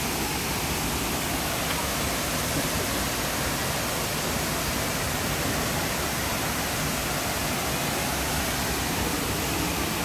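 Tall waterfall pouring into its plunge pool: a steady, even rush of falling water.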